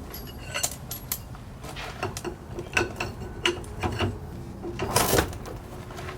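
Irregular light metallic clicks and clinks, a few a second, with a louder rattle about five seconds in: hand work with metal parts or tools.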